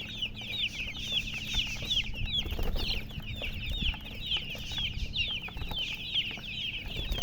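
Baby chicks peeping continuously: many short, high, downward-falling chirps from several birds at once, overlapping at several a second.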